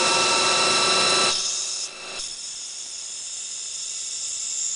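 SMART CNC lathe machining a brass bar: a loud, steady mix of spindle whine and cutting noise with several steady tones. About a second in, it drops to a quieter steady hiss with a high whine.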